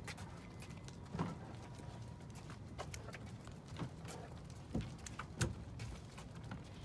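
Footsteps and a loaded wheeled cart rolling along a concrete dock, with irregular clunks and knocks over a low rumble; the sharpest knock comes about five seconds in.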